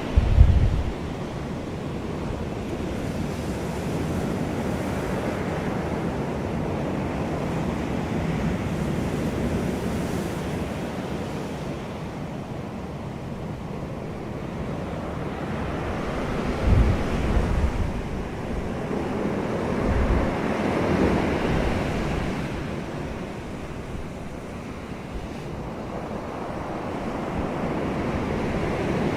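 Ocean surf: waves rolling in and washing out in a continuous rush that slowly swells and ebbs. There are brief low rumbles just after the start and again about two-thirds of the way through.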